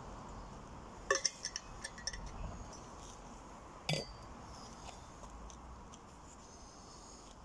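Clinks and knocks from a drinks bottle being handled. There is a quick run of light clicks about a second in, then one louder knock near four seconds as it is set down on the ground.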